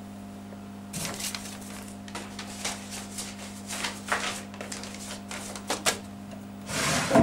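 Papers being handled and shuffled in hand: a string of irregular rustles and flicks starting about a second in, with a louder rustle just before the end, over a steady low hum.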